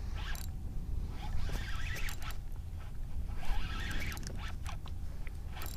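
Fishing reel whirring in several short bursts while a hooked fish is brought up.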